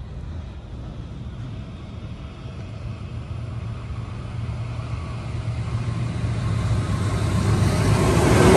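Two NR class diesel-electric locomotives hauling a passenger train approach with a steady low engine drone that grows steadily louder. Near the end the sound gets fuller and higher as the lead locomotive draws level.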